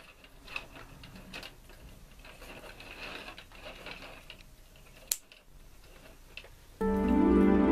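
Faint clicks and rustling of scissors working through organza ribbon, with one sharp click about five seconds in. Soft, gentle background music comes in near the end and is the loudest sound.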